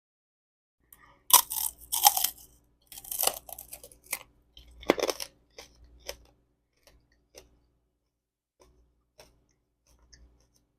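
A candy grape's hardened Jolly Rancher shell crunching loudly as it is bitten into, then chewed, the crunches growing fewer and fainter.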